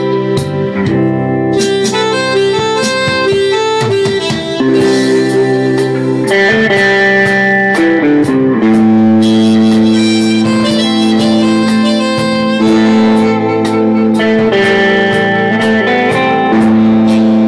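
Live instrumental music: a Korg keyboard playing sustained chords and a held lead line over a steady ticking beat.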